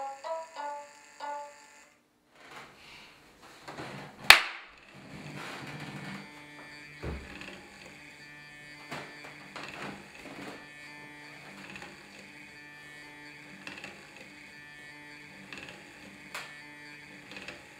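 A few notes of plucked-string music, then one sharp click about four seconds in. After it comes the steady whir of a small electric gear motor driving the cardboard toaster's toast mechanism, with scattered light clicks of the gearing.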